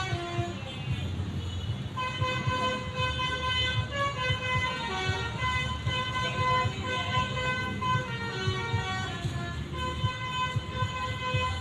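Bus 'telolet' multi-tone air horn playing a tune of held notes that step from pitch to pitch, over a low rumble.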